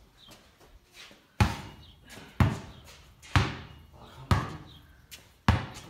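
A basketball being dribbled: five bounces about a second apart, the first about a second and a half in, each ringing with echo inside a corrugated-iron shed.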